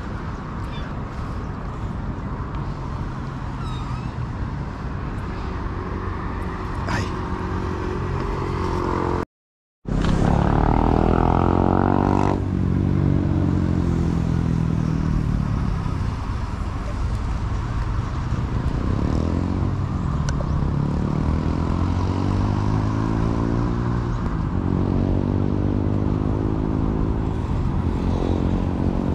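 Engine of a motor vehicle running steadily, its pitch slowly rising and falling, with the sound cutting out completely for a moment about nine seconds in.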